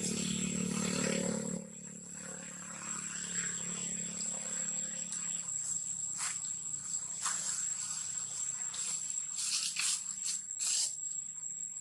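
Steady high-pitched drone of forest insects. A low hum drops away about a second and a half in and is gone by about five seconds. A few short, sharp noises come in the second half.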